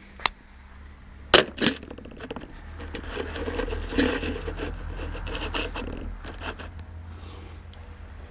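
Knocks, clicks and scraping of a camera being handled and set down on a wooden table, the sharpest knocks in the first two seconds, then a few seconds of rustling handling noise. A faint steady hum runs underneath.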